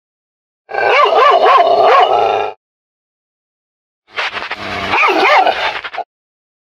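Recorded dog barking played back by a homemade motion-triggered bark alarm built from a PIR motion sensor and an MP3 playback module. It comes in two bursts of quick barks, each about two seconds long, and each starts and cuts off abruptly as the clip plays.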